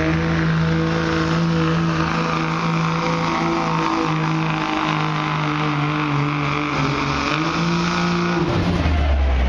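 Diesel pickup truck engine held at high revs under full load as it pulls a weight-transfer sled, running at a steady high pitch with small dips. About a second before the end the engine note drops away as the pull ends.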